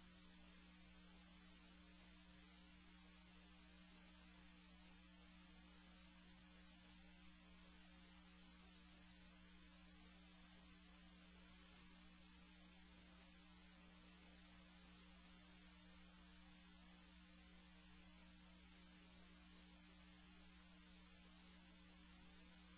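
Near silence: a faint steady electrical hum with hiss.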